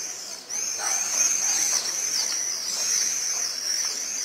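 Birds chirping: a continuous stream of short, high calls that rise and fall.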